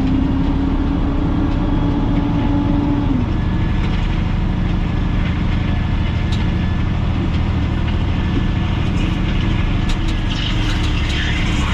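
Dump truck's diesel engine running steadily with the PTO engaged, driving the hydraulic hoist while the bed is raised to dump its load. A steady hum within the engine noise stops about three seconds in.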